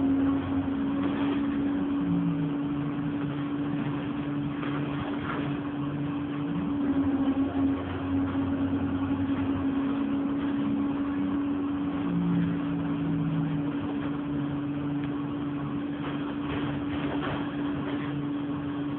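Alexander Dennis Enviro200 Dart single-decker bus under way, heard from inside the saloon: its diesel engine running with a steady hum and shifting engine note, with a few short rattles near the end.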